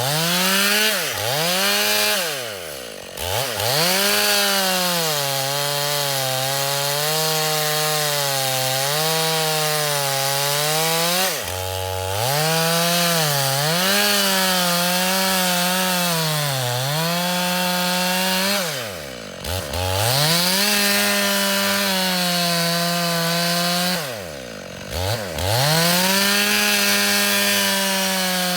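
Gasoline chainsaw running at high revs and cutting into thick wood, its engine pitch sagging and wavering under the load. About four times the throttle is let off and the engine drops sharply toward idle, then revs straight back up.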